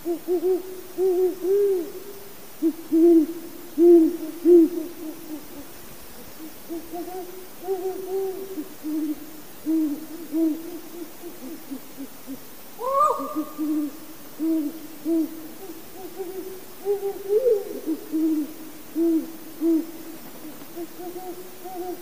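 Great horned owl hooting: deep hoots in repeated phrases of several notes each, with one short, higher rising call about thirteen seconds in.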